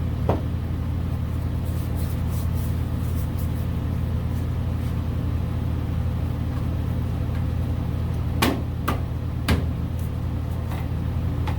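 A steady low hum runs throughout. A sharp knock comes just after the start, and three more come close together about eight and a half to nine and a half seconds in, from parts and tools being handled while the bumper mount is worked on.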